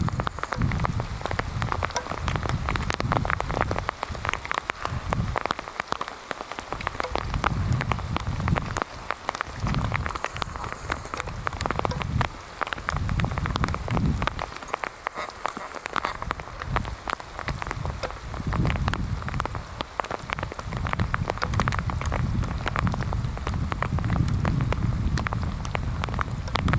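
Rain falling steadily, with many sharp drop hits throughout and a low rumble that swells and fades every few seconds.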